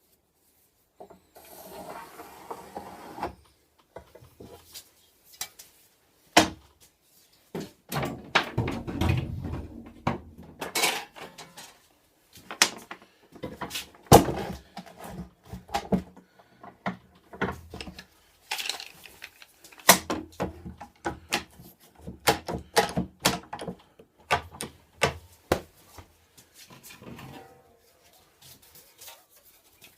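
Irregular knocks, clicks and scraping from wooden pieces and tools being handled and set down on a workbench, with a few sharper knocks standing out around the middle.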